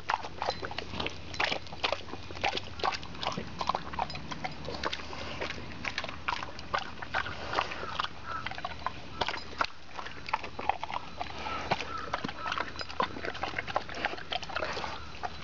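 A dog eating soft ripe papaya off the ground: wet chewing and lip-smacking, a rapid irregular run of smacks and clicks, several a second.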